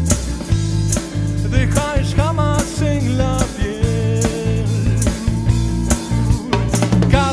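A rock band playing live: drum kit with a steady beat, electric bass and guitars, and a man singing the lead vocal in Spanish.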